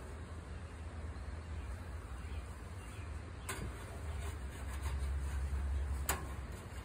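Steady low rumble and noise from outdoors at an open gas grill, with two sharp clicks about two and a half seconds apart as the chicken on the grill is worked on.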